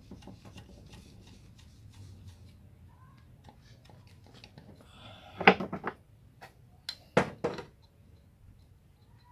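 Screwdriver prying a distributor out of its seat on the engine's cylinder head: light metal scraping and ticking, with sharp metallic clinks about five and a half seconds in and again around seven seconds in.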